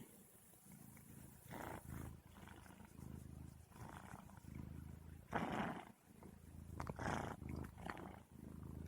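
A cat's low steady rumbling purr or growl, broken by several short louder cries, the loudest about five and a half seconds in.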